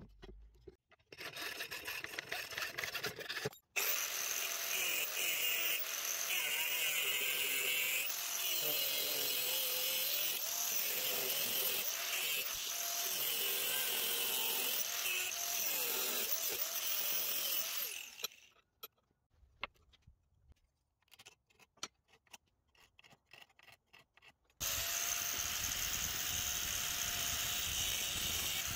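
Angle grinder with a cutoff wheel cutting into the steel blade blank: a loud, rough whine whose pitch wavers as the motor is loaded, stopping about two-thirds of the way through. A few scattered clicks and knocks follow, then the grinder starts again shortly before the end and runs steadily.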